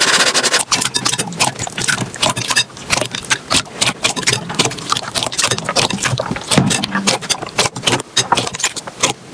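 Slime being squeezed and worked by hand, with a dense, irregular run of small crackling pops and clicks.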